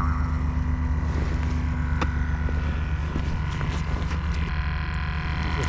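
Steady low mechanical drone. About four and a half seconds in, a higher steady hum joins it as a small 12 V air pump for a live-bait bucket starts running, once its plug makes contact in a rusty cigarette-lighter socket.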